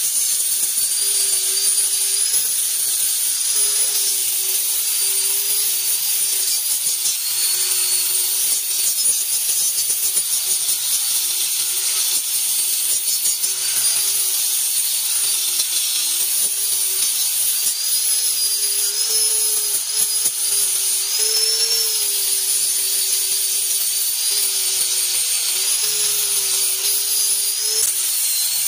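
Electric angle grinder with an abrasive disc running continuously while grinding and smoothing a steel sheet and its edge: a steady high whine over a hiss of abrasion, its pitch wavering slightly as the disc works against the metal.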